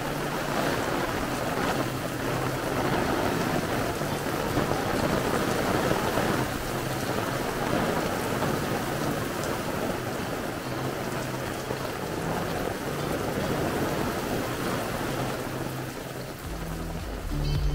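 Steady rain falling, a dense even wash of drops.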